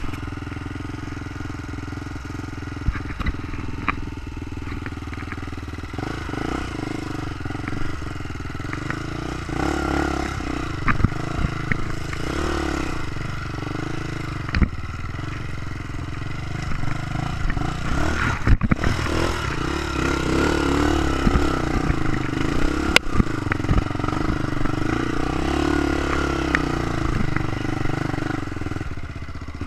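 Trail motorcycle engine running and revving up and down as it rides, with scattered sharp knocks and rattles.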